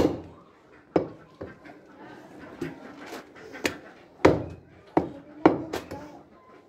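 Meat cleaver chopping goat meat on a wooden log chopping block: about nine sharp, irregularly spaced chops, roughly one every half second to second.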